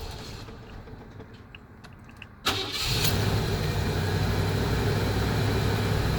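An old van's engine starts with a sudden catch about two and a half seconds in, then runs at a steady idle.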